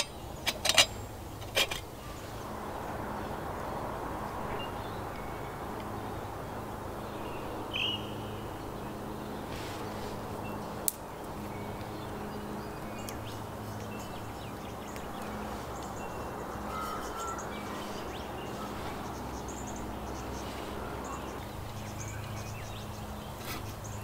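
A metal lid clinks a few times as it is set on a billy mug, then the twig fire under the billy burns with a steady hiss. A single short bird chirp about eight seconds in, and a few light metal clinks near the end as the billy is handled.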